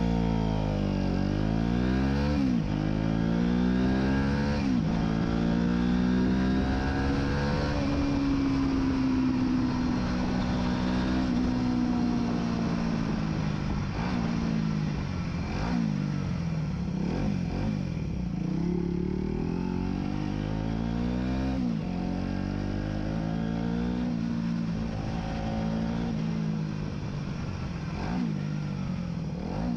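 Aprilia RS4 125's single-cylinder four-stroke engine under way, its pitch climbing and then dropping sharply several times as it accelerates through gear changes, holding a fairly steady pitch for several seconds in the middle.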